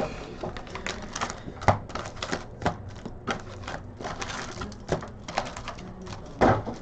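Trading cards and pack wrappers being handled: an irregular run of sharp clicks and short rustles, with a louder knock near the end.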